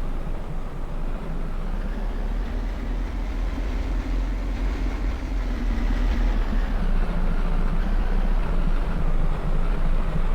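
Steady low rumble of a vehicle in motion, growing slightly louder toward the end.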